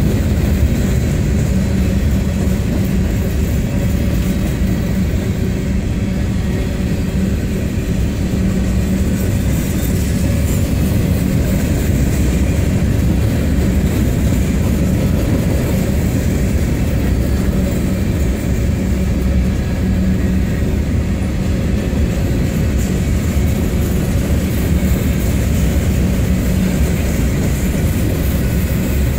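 Freight train's covered hopper cars rolling past, a loud steady rumble of steel wheels on the rails.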